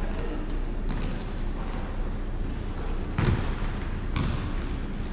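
Basketball dribbled on a hardwood gym floor, a few separate bounces, with short high-pitched sneaker squeaks about a second in.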